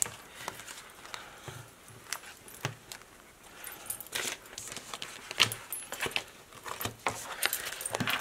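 A handful of paper sticker sheets being shuffled and fanned through by hand: irregular rustling and crinkling with small sharp ticks, busiest about four to five and a half seconds in and again near the end.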